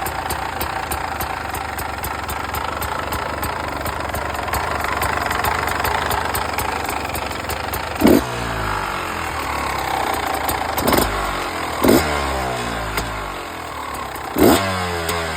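2015 Beta 300 RR single-cylinder two-stroke engine idling with a rattling noise, its throttle blipped briefly four times in the second half.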